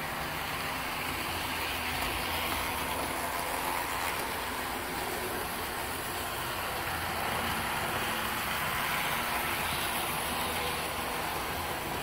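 HO-scale model trains running on the layout: a steady rumble of wheels rolling on the rails and the DC motors of Athearn Amtrak diesel locomotives, growing a little louder twice as a train passes close by.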